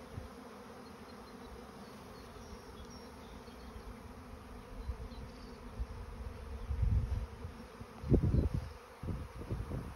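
A swarm of honeybees pouring out of a hive and filling the air, making a dense, steady buzzing hum. In the second half, low rumbling gusts come over it, loudest about eight seconds in.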